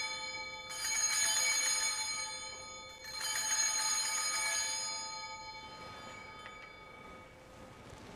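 Altar (sanctus) bells, a cluster of small bells, shaken at the elevation of the host during the consecration. Two fresh rings come about a second and three seconds in, then the ringing dies away.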